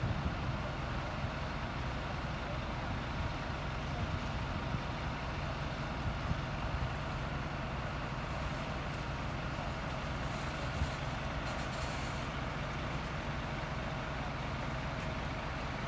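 Diesel engines of fire engines running steadily, a continuous low rumble, with a faint high hiss for a few seconds about two-thirds of the way through.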